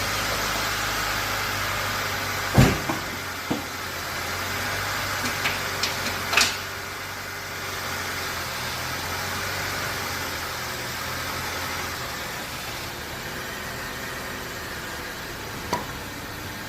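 1995 Honda Civic Del Sol Si's four-cylinder engine idling steadily, just started after an oil change. A few sharp knocks sound over it, the loudest about two and a half seconds in.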